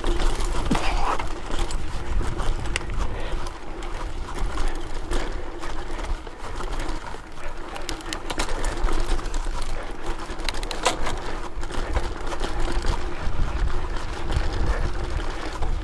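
Mountain bike riding over dry dirt and loose stones: wind rumbling on the camera microphone, tyres rolling and crunching, and frequent clicks and rattles from the bike as it goes over bumps, with a steady hum underneath.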